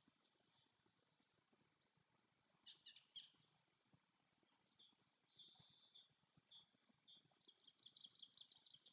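Faint forest birdsong: two spells of quick, high chirping trills, one about two seconds in and one near the end, with a few scattered single chirps between.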